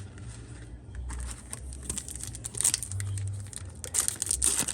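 Crinkling and tearing of trading-card packaging as a sealed Yu-Gi-Oh! booster box is opened, with irregular crackles that get louder near the end.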